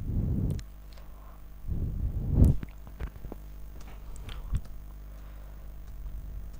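Two short spells of low rumble, the second ending in a sharp knock about two and a half seconds in, followed by a few light clicks of a computer mouse and keyboard over a faint steady hum.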